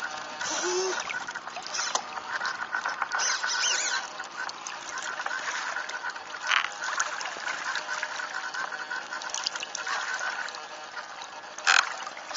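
Water rushing and splashing against the hull and foils of a Mini40 radio-controlled hydrofoil trimaran, heard close up from on board. A sharp splash comes about six and a half seconds in and a louder one near the end.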